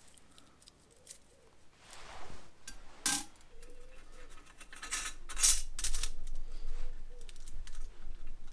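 Thin steel end-float shims clicking and scraping against each other and the axle studs as they are slid down onto a tractor's brake back plate. There are scattered metallic clicks, one about three seconds in and a quick cluster a couple of seconds later.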